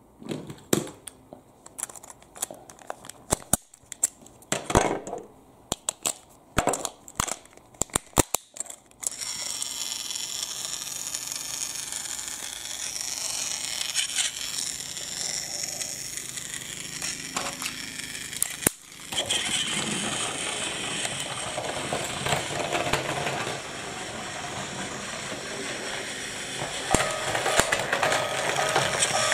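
Plastic Plarail toy trains and track clicking and clacking as they are handled and set down. About nine seconds in, a battery-powered Plarail toy train's motor and gears start a steady whirring that runs on, with a short break a little past halfway.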